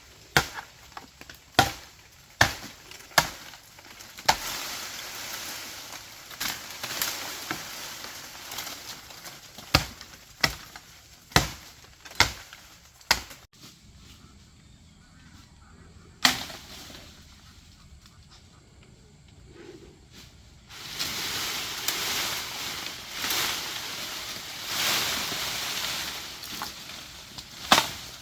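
Chopping strikes of a blade into wood: a quick run of sharp chops, roughly one every three-quarters of a second at the start, then scattered strikes with pauses, and a single chop in a quieter stretch. Between the chops there are long stretches of steady hiss.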